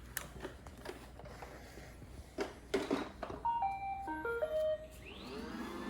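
A few clicks and knocks from a Roomba 960 robot vacuum being handled, then its short electronic start-up tune of stepped beeps. Near the end its vacuum motor spins up with a rising whine and settles into a steady run.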